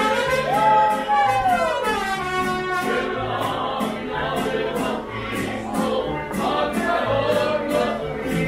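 Live mariachi band playing: strummed guitars keep a steady rhythm over a pulsing bass line, with singing and a long held note that bends downward about two seconds in.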